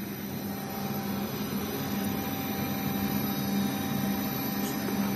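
HKI 4025 CNC milling machine spindle running at 2000 rpm with an end mill fitted, a steady hum with a steady tone, spinning freely above the workpiece without cutting yet.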